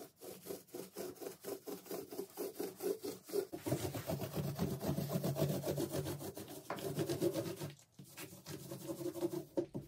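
Small paint roller rolling primer onto the panel of a wooden cabinet: a fast, repeated rubbing of back-and-forth strokes, broken by a short pause about eight seconds in.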